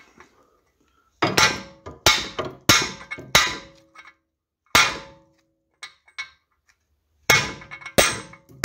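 Hammer blows on steel, knocking the front wheel hub housing to drive it out of the steering knuckle, where it is stuck hard. Four quick ringing strikes, one more a moment later, then after a pause two more near the end.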